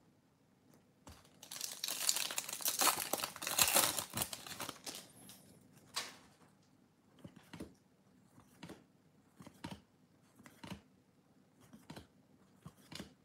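Foil wrapper of a Bowman baseball card pack torn open and crinkled by hand, starting about a second and a half in. Then the cards are slid and flicked one at a time, each making a short light snap about once a second.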